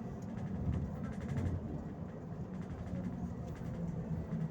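Volgabus-5270.G2 city bus on compressed natural gas, heard from inside the cabin while driving: a steady low engine and road rumble.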